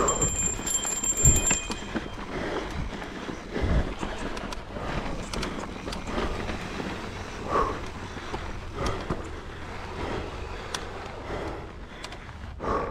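Footsteps and scuffs on a dry, sandy dirt trail, with irregular knocks and thuds, two of them louder in the first four seconds. Wind rumbles on the microphone throughout.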